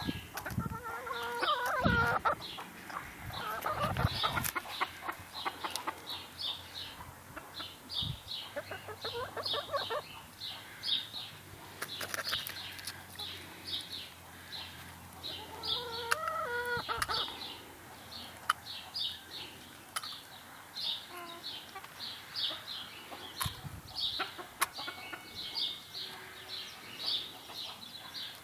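Chicken clucking and squawking in a series of calls, the loudest about sixteen seconds in. A high chirp repeats about twice a second throughout, with scattered sharp clicks.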